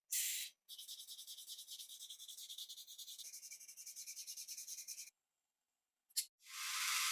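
Quick back-and-forth rubbing strokes on a small part of a rusted toy car, about ten a second for some four seconds, as in hand sanding or scrubbing off rust. A click follows after a pause, then a steady hiss starts near the end.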